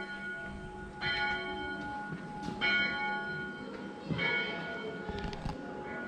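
Bells ringing, with a new stroke about every one and a half seconds, each one ringing on and fading before the next.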